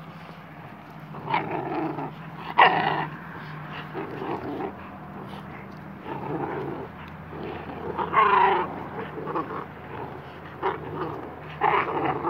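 American Staffordshire terrier and puppies growling in play while they tug on a rope toy, a low steady growl with short, louder outbursts breaking in several times.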